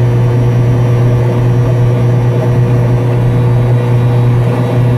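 Piaggio Ape 50's small single-cylinder two-stroke engine running at a steady pitch under way, heard from inside the cab.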